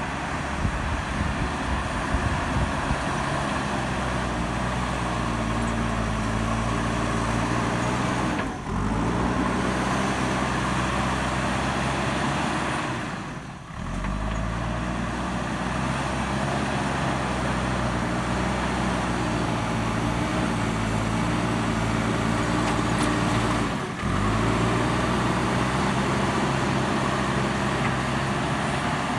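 JCB backhoe loader's diesel engine working under load as it pushes gravel, its pitch sinking and rising as the load changes, with a few brief drops in sound.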